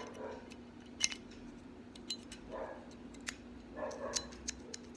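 Small metal gun parts clicking as a Glock 17 Gen4 firing pin assembly is fitted into the pistol's slide: about five sharp, separate clicks, roughly a second apart.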